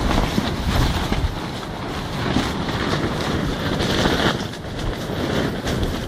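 Coleman Instant 6-person tent's fabric walls and roof buffeted by high winds, flapping and crackling, with wind rumbling on the microphone. A stronger gust swells about four seconds in, then eases.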